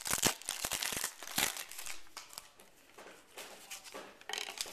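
Trading cards and a pack wrapper being handled: crinkling, rustling and card flicks, busy in the first second and a half, then sparser and fainter.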